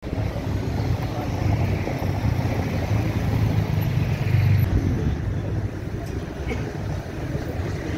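Road traffic: a steady low rumble of vehicles, swelling slightly about halfway through.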